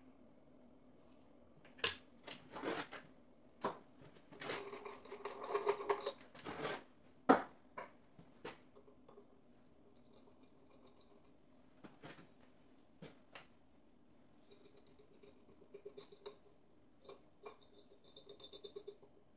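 Hand tools on the metal hub of a homemade five-cylinder radial engine during disassembly: scattered metal clicks and knocks, a run of rapid clicking about four to six seconds in, and a sharp knock just after. Fainter quick ticking comes back near the end.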